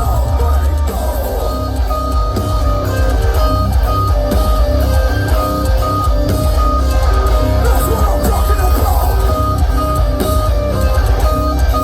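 Metalcore band playing live: electric guitars play a stepping melodic lead line over a heavy bass guitar low end.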